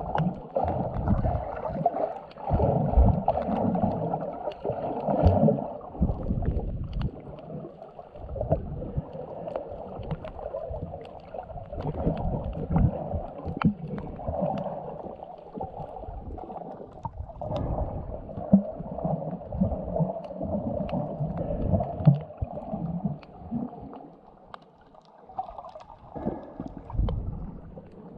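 Muffled underwater sound from a submerged camera: water swishing and rumbling in uneven surges as it moves through the shallows, with scattered faint clicks.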